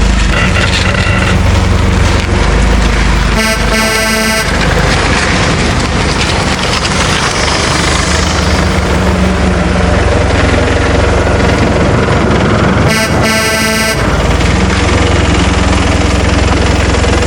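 A vehicle engine running with a steady low rumble, and a horn honking twice, each honk about a second long: one about four seconds in and one about thirteen seconds in.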